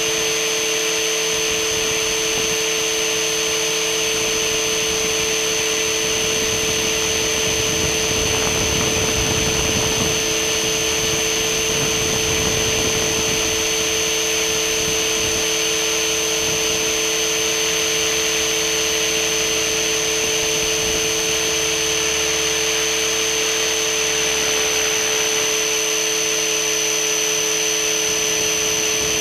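Radio-controlled helicopter running steadily, heard from a camera mounted on it: a constant high motor whine over rotor noise, with some added low rumble from about seven to thirteen seconds in.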